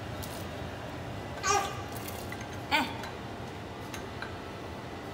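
Two brief, high-pitched vocal sounds about a second and a half apart, over a steady low hum.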